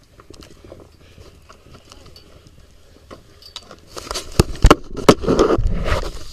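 Handling noise from a jostled camera. A few sharp knocks about four to five seconds in, then a second of loud rubbing and scraping against the microphone.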